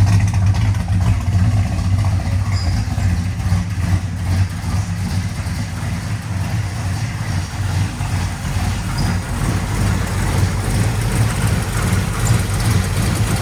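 Chevrolet 427 big-block V8 idling steadily.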